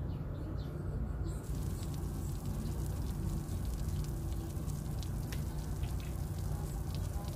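A small egg frying in a miniature aluminium pan over a small fire, sizzling with many small crackles and pops that set in about a second and a half in, over a steady low rumble.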